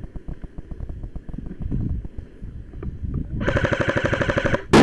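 Quick footsteps moving over the ground, then an airsoft gun firing a full-auto burst of about a second and a half: a fast, even rattle of shots, ending in one loud knock.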